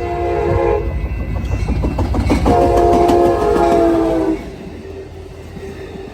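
Amtrak Capital Corridor passenger train, led by an F59PHI diesel locomotive, passing close by and sounding its multi-note horn twice, a short blast and then a longer one, over the loud rumble of the train. The rumble drops away sharply a little past halfway.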